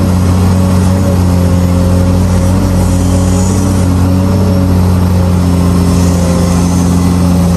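Caterpillar 385C excavator's diesel engine running steadily under load while the machine digs.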